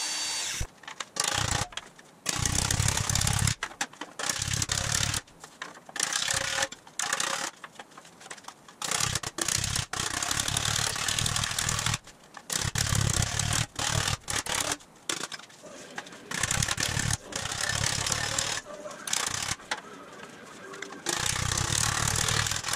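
Vertical band saw cutting through a sheet-metal grille shell, heard in short clips of a second or two that start and stop abruptly.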